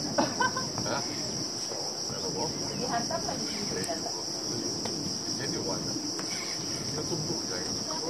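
Steady, high-pitched drone of a chorus of insects, unbroken and even in level.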